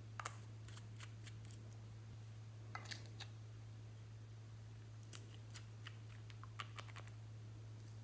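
Scattered small, sharp clicks and taps from handling glass nail polish bottles and their screw caps, in loose clusters, over a faint steady low hum.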